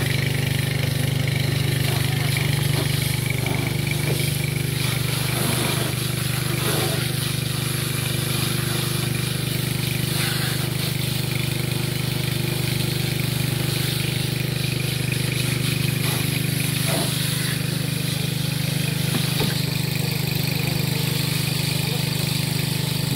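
An engine running steadily at a constant speed, with a continuous hiss of water spraying from a fire hose.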